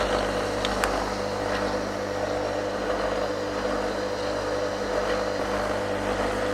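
An old metal lathe running under its electric motor on newly fitted thrust bearings: a steady hum and whir with a constant tone. It is switched off right at the end and starts to run down.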